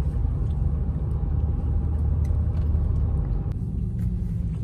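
Steady low rumble of a Honda's engine and road noise, heard from inside the cabin while driving.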